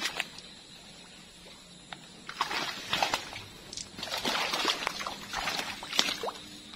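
Footsteps sloshing and squelching through wet, overgrown ground, in irregular bursts starting about two seconds in.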